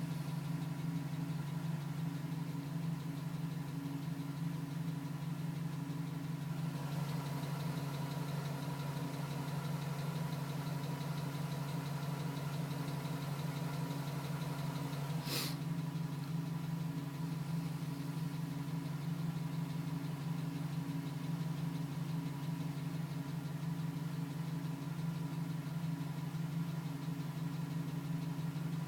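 A 2010 GMC Sierra pickup's engine idling steadily with a tapping noise while still warming up, which the owner questions as piston slap. A single sharp click comes about halfway through.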